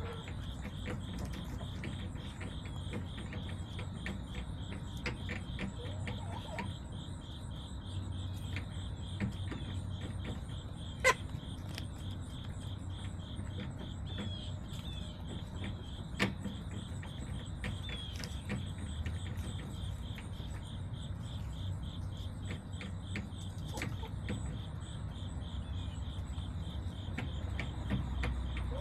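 Crickets chirping in a steady pulsing rhythm over a low rumble, with a few sharp taps or clicks, the loudest about 11 seconds in and another about 16 seconds in.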